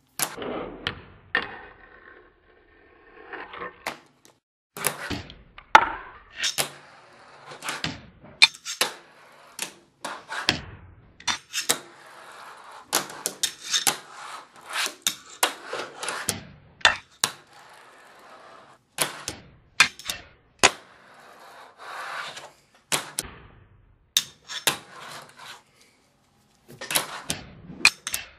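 Fingerboard tricks on a tabletop: many sharp clacks of the board popping and landing. Between them comes the hiss of its bearing wheels rolling and its chrome trucks scraping along a tile ledge.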